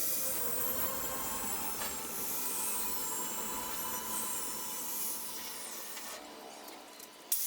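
A steady rasping hiss of a tool working steel square tubing. It eases off about six seconds in and starts again abruptly just before the end.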